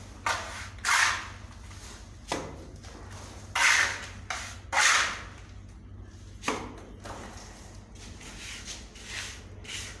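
Mason's trowel throwing and spreading cement mortar on a brick wall: about six irregular slaps and scrapes, with quieter scraping between them.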